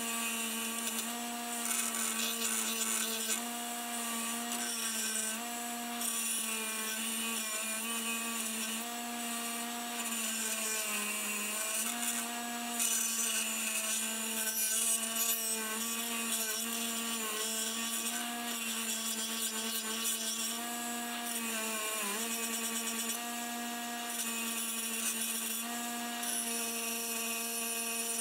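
Bench grinder motor running steadily while the rusty head of a cross-peen hammer is pressed against its spinning wheel, with a rough, varying scrubbing of metal on the wheel. The motor's hum sags briefly in pitch twice under the load.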